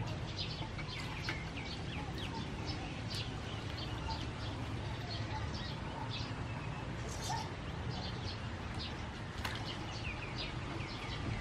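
Small birds chirping in short calls at irregular intervals over a steady low background noise, with soft water sounds of octopus being washed by hand in a metal basin.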